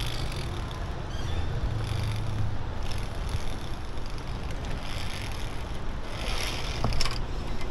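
Wind buffeting the microphone as a low rumble, with scattered scuffs and rustles and a sharp click near the end as a climber steps along the wooden rungs of a cable bridge on a ropes course.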